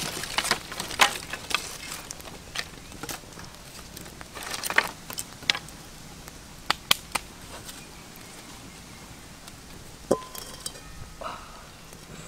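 Irregular sharp clicks and knocks, about a dozen, bunched in the first eight seconds, with a lone louder knock about ten seconds in.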